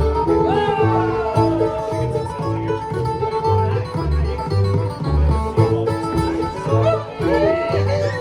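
Bluegrass band playing an instrumental: banjo picking and guitar over a steady beat of alternating low bass notes, with a lead line that slides between notes.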